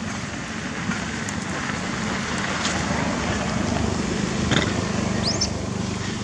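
Steady outdoor background rumble and hiss with a low hum, a few light clicks, and one brief rising chirp about five seconds in.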